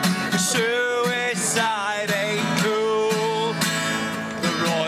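A man singing a folk song to his own strummed acoustic guitar, holding long notes.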